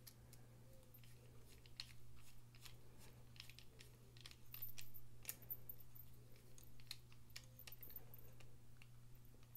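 Faint, scattered small metal clicks and ticks of a hand screwdriver turning a tiny pocket-clip screw into a titanium folding-knife handle, the bit and clip shifting against the metal as it goes in.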